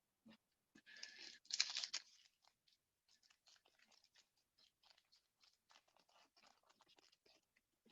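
A foil trading-card pack torn open and crinkled, loudest between about one and two seconds in, then faint rustling and light ticks as the cards are handled.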